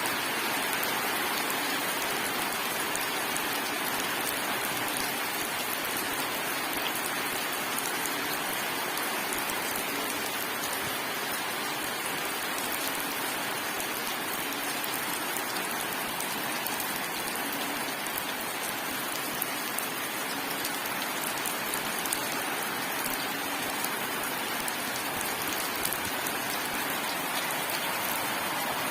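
Rain falling steadily: an even hiss with scattered sharp drop ticks.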